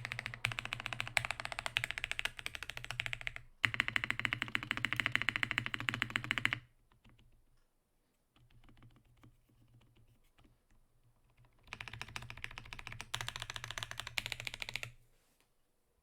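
Fast typing on a Frog TKL mechanical keyboard with Holy Boba tactile switches: rapid runs of keystrokes, a stretch of a few quieter, sparser presses in the middle, then another fast run that stops about a second before the end.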